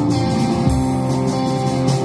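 A live band playing, with guitar to the fore.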